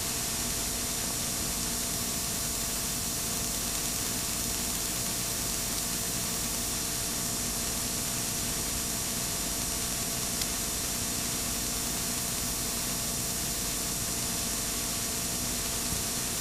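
Steady hiss with a faint low hum from a blank stretch of videotape playing back.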